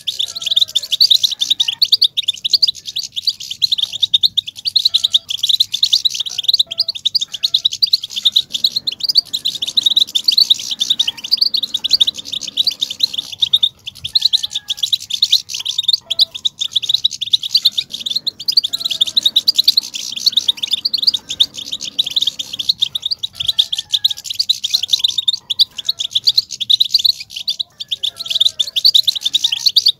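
European goldfinch 'batbata' chatter: a dense, unbroken stream of quick, high twittering chirps. This excited chatter is the call that is played to stir male goldfinches into song.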